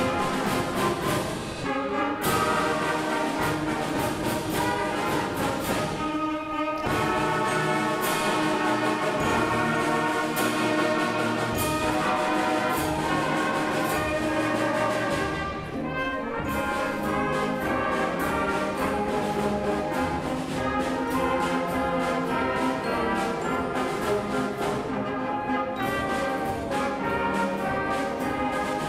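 A seventh-grade concert band playing a march: brass and woodwinds over percussion, with a few short breaks between phrases.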